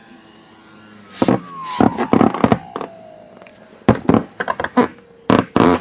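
RC seaplane's motor whining, its pitch falling steadily as the throttle comes back, then holding at a lower steady whine near the end. Loud, irregular thumps come in two clusters over it, the loudest sounds present.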